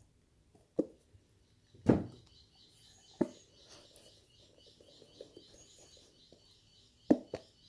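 A few sharp knocks of a spoon against a bowl of glue and water, with light scraping between. A high, rapidly repeated chirping runs in the background from about two seconds in.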